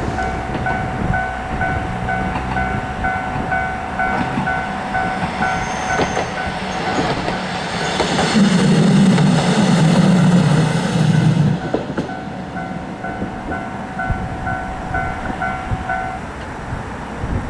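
Japanese level-crossing warning bell ringing its rhythmic 'kan-kan' while a Matsuura Railway diesel railcar runs over the crossing. The train is loudest from about eight to twelve seconds in, and the bell stops near the end.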